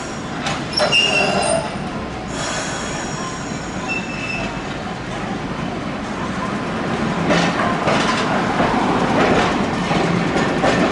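Okayama Electric Railway streetcar running on its rails, with short high-pitched squeals from the wheels about a second in and again about four seconds in. The running sound grows louder in the second half.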